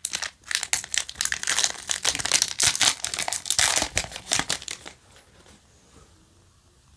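Foil wrapper of a Yu-Gi-Oh! booster pack crinkling as it is torn open and the cards are slid out. The crinkling stops about five seconds in.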